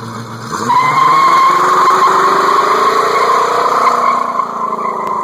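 Car doing a burnout: the tires squeal with a steady high whine while the engine revs, its pitch climbing over the first few seconds.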